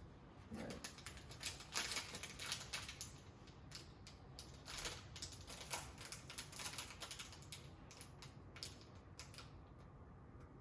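Irregular clicking and rattling of hard plastic parts being handled: the Keurig K-Supreme coffee maker's water filter and its holder.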